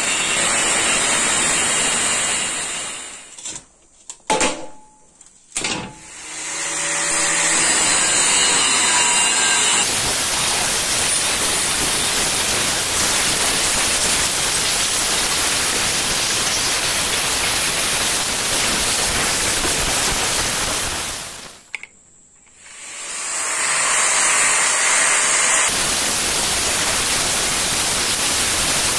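Angle grinder with a thin disc cutting through the steel of an old circular saw blade: a loud, steady grinding noise. Twice it winds down, about three seconds in and again about twenty-one seconds in, with a couple of sharp clicks in the first pause, then spins back up into the cut.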